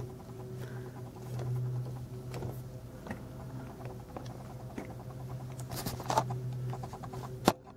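Light clicks and scratching from hands handling a plastic diecast model mixer truck and turning its drum, over a steady low hum. A quick run of small ticks comes near the end, followed by one sharp click.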